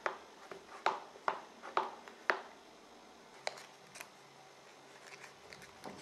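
Small craft items clicking and knocking on a work table as a hand sorts through them: five sharp taps in the first two and a half seconds, then two more about three and a half and four seconds in.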